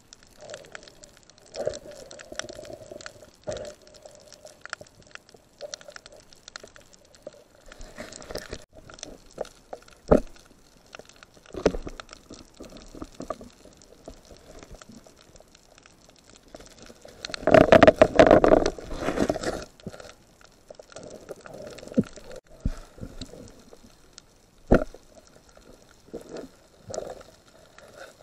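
Muffled underwater noise through a camera's waterproof housing on a dive: scattered clicks and knocks, and a loud rushing noise lasting about two seconds a little past the middle.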